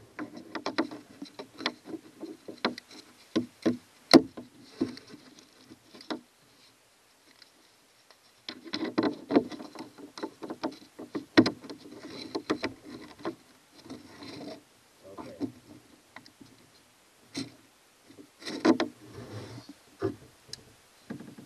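Small locking pliers working a through-hull bolt and nut of a trolling-motor mount: irregular sharp metal clicks, scrapes and rubbing in bursts, with a pause of about two seconds some six seconds in.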